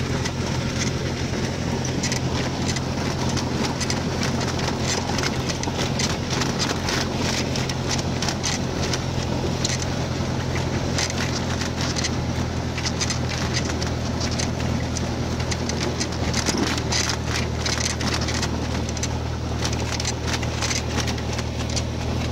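The Cessna 172M's four-cylinder Lycoming engine and propeller, heard from inside the cabin, running at low taxi power as the plane rolls across grass: a steady low drone with a rapid irregular crackle over it.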